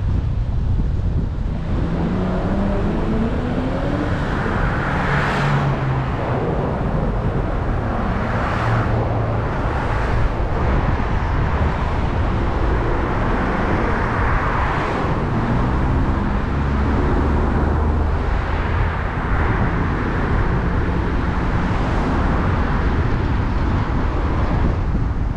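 A car being driven on a road: steady road and wind noise over a low engine hum. The engine's pitch rises as the car speeds up, twice, and there are a few brief swells of noise.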